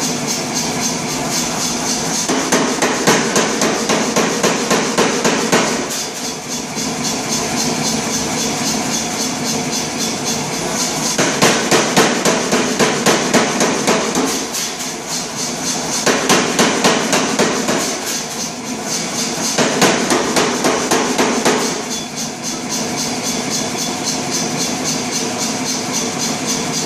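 A 100 lb Reiter air hammer striking a red-hot 1045 steel bar held in tongs. Its blows come in four runs of a few seconds each, at about four blows a second. Between the runs the hammer keeps up a steady running noise.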